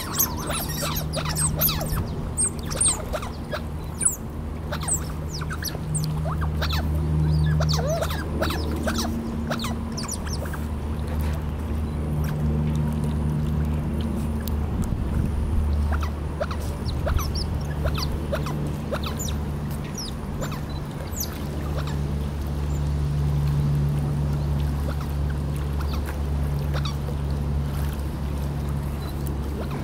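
Smooth-coated otters giving short, high chirps and squeaks amid water splashing as the family swims and feeds, the calls most frequent in the first ten seconds. A steady low hum runs underneath throughout.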